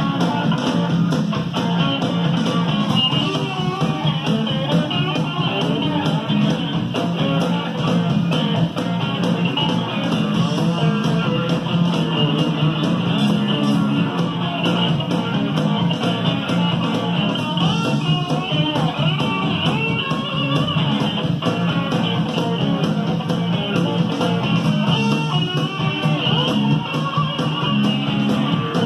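Band music with guitar and bass, played from a cassette tape on a Sanyo stereo cassette deck and heard over loudspeakers in the room, running steadily.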